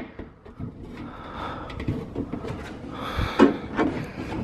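Plastic diffuser cover of a round LED flush-mount ceiling light being pressed and worked into its frame by hand: rubbing and scraping with scattered clicks and a stronger knock about three and a half seconds in, as the cover seats.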